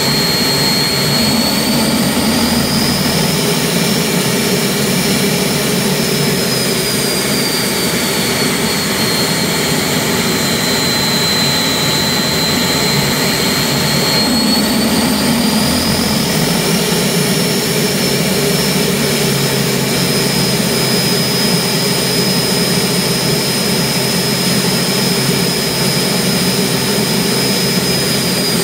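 Turbomeca gas-turbine engine running on a test stand with a high turbine whine. The whine rises in pitch a few seconds in, falls back, rises again about halfway through, then holds steady.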